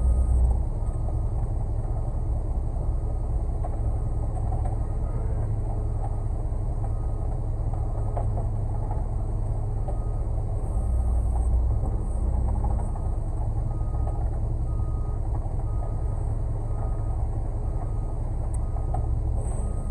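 Concrete mixer truck's diesel engine running steadily, swelling briefly about ten seconds in, with a faint beep repeating at even spacing.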